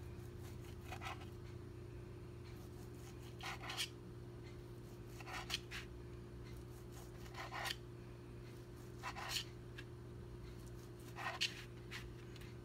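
Kitchen knife slicing a smoked sausage into rounds on a thin plastic cutting sheet over a cutting board: short scraping cuts, about one every two seconds, over a steady low hum.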